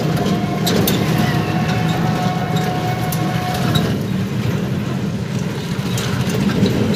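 Ride noise of a battery e-rickshaw on a rough, broken road: a steady low rumble with frequent small rattles and knocks from the open frame, and a steady whine that stops about four seconds in.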